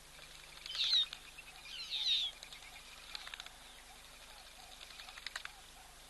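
A bird calling twice with loud, high-pitched, downward-sweeping notes about a second apart, followed by a few sharp ticks, over faint repeated chirps in the background.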